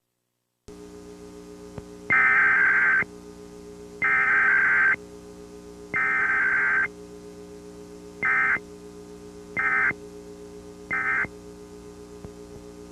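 Emergency Alert System Required Weekly Test: three bursts of about a second each of SAME digital data tones (the alert header), then three short bursts (the end-of-message code), with no attention tone between them. A steady electrical hum runs underneath.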